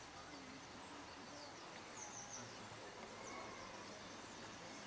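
Quiet outdoor background noise with a few faint, high bird chirps about two seconds in.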